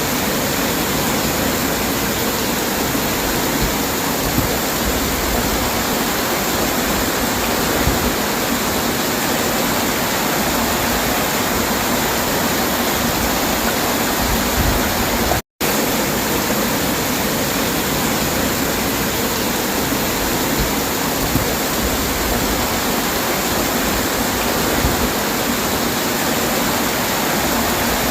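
Heavy rainfall, a steady dense hiss of rain, broken by a momentary cut about halfway through.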